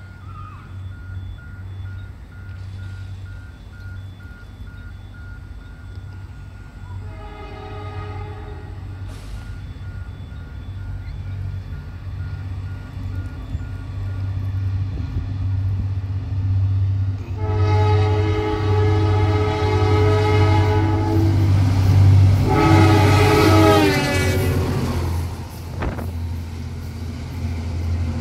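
Two diesel locomotives, 2415 and 2473, running light engine past at speed, their engine rumble growing louder as they approach. They sound their horn three times: a short blast about seven seconds in, a long blast around eighteen seconds, then a final blast whose pitch drops as they pass, the Doppler effect.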